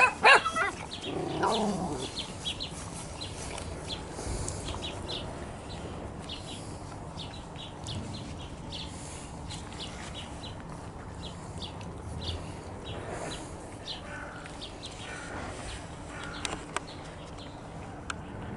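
A litter of puppies eating from food bowls: many short wet smacking and clicking sounds. There is a short falling whine about a second in.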